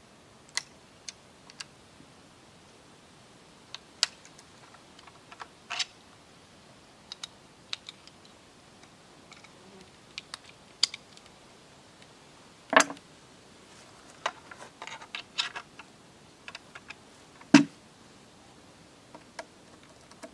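Scattered small clicks and taps of a hand tool working the adjustable cheek piece on a shotgun stock, shifting it sideways by a few millimetres to change the cast. Two louder knocks come past the middle and near the end.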